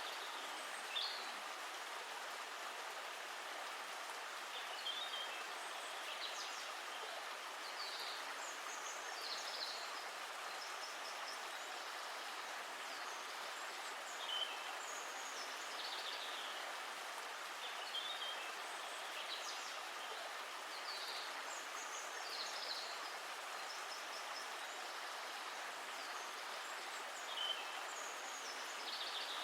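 Water of a stream flowing steadily, with short high bird chirps breaking in every few seconds.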